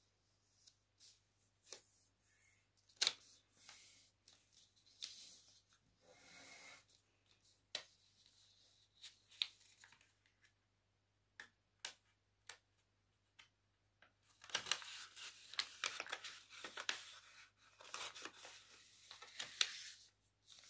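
A sheet of paper being handled, unfolded and refolded: scattered sharp crackles and rustles, growing into dense crinkling and rustling over the last few seconds.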